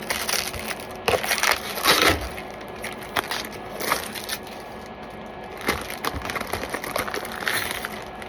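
Irregular crackling and clicking of a clear hard-plastic laptop case and its plastic wrapping being handled, with a few sharper crackles scattered through.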